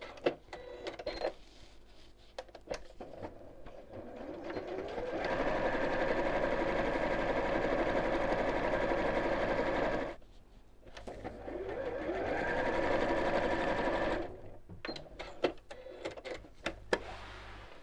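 Domestic electric sewing machine stitching quilting lines through fabric and fusible foam: a few slow stitches, then the motor speeds up with a rising whine into a steady fast run, stops abruptly about ten seconds in, starts and speeds up again, then slows down and ends in a few separate clicks.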